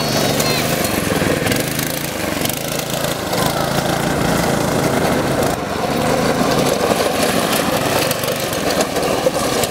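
Small Tecumseh engine of a Yerf-Dog go-kart buggy running steadily under throttle as the buggy drives over dirt.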